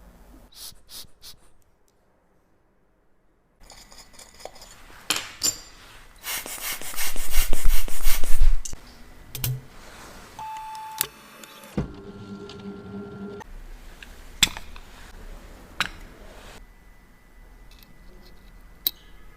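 Small metal clicks and clinks of watch parts and repair tools being handled during a wristwatch service. A louder rustling stretch comes about a third of the way in, and brief steady tones come a little past the middle.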